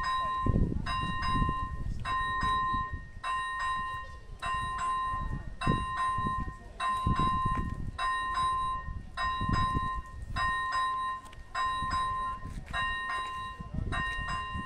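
ZV-01 level-crossing warning bell ringing in repeated bursts of quick strokes, a new burst about every second, the crossing's signal that a train is approaching. A fluctuating low rumble runs underneath.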